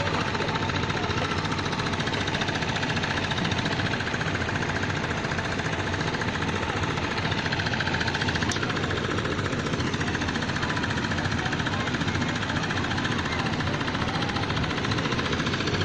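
A small engine, such as one driving concrete-pouring machinery, running steadily with a fast, even knocking beat.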